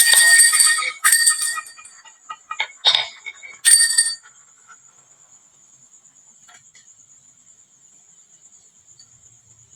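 Glass marbles clattering down a wooden marble run with ringing clinks. The dense clatter thins out about a second in to a few separate bursts of clinks, the last about four seconds in. After that only a faint high steady whine remains.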